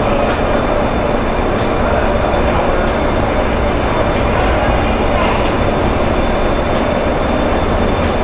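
Steady machinery noise from the ferry's vehicle-loading lift platform running as it lifts. There is a constant hum and rumble with thin, steady high whines over it.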